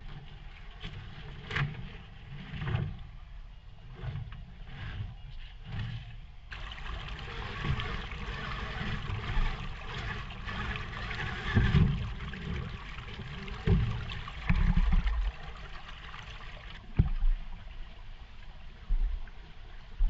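Shallow creek water splashing and gurgling around a scale RC rock crawler as it drives through the water, with irregular thumps and knocks.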